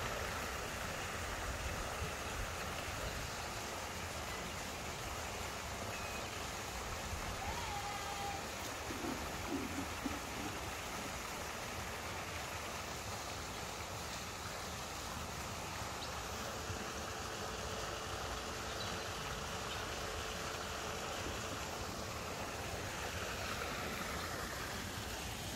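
Steady rushing noise of wind on the microphone, with a few faint short calls about a third of the way in.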